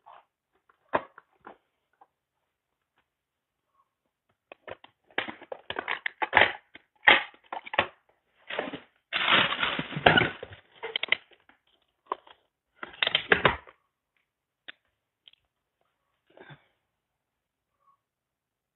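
Rummaging through plastic storage drawers and a plastic toolbox: irregular clatter and clicks of objects being moved about and picked up, in bursts from about four to fourteen seconds in, then a few scattered clicks.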